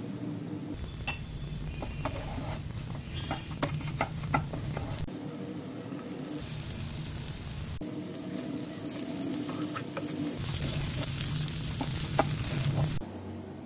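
Potato filling sizzling in a nonstick frying pan while a spatula stirs and scrapes through it, with several sharp clicks of the utensils knocking against the pan.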